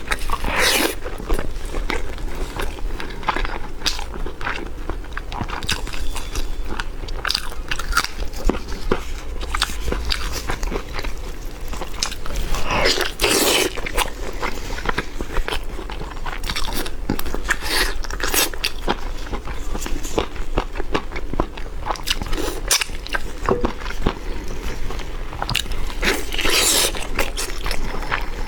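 A person biting into and chewing crisp, crunchy food close to the microphone, with irregular crunches throughout.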